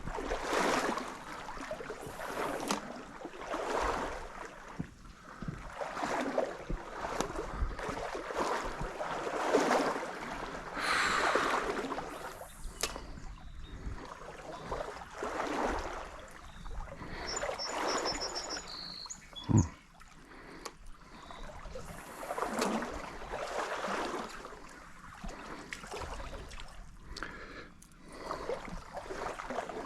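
Wading through a trout stream: legs swishing through the water in repeated strides, one every second or two, with a single sharp knock about two-thirds of the way through.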